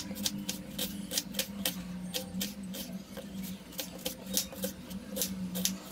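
Kitchen knife slicing through a red onion onto a bamboo cutting board: a steady run of crisp cuts, about four a second, over a low steady hum.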